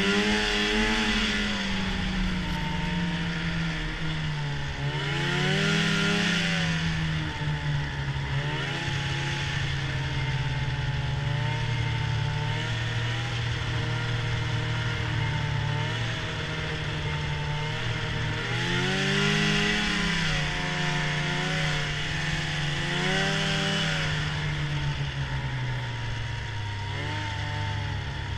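Arctic Cat snowmobile engine running under way, its pitch rising and falling as the throttle is opened and eased: surges about a second in, around six seconds in, and twice more around twenty seconds in. A rushing noise swells with each surge.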